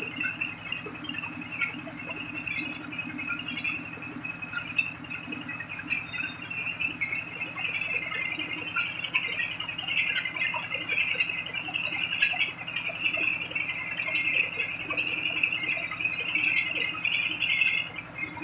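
Small horizontal single-cylinder diesel engine running steadily, driving a water-well drilling rig through belts, with a continuous metallic rattle from the rig.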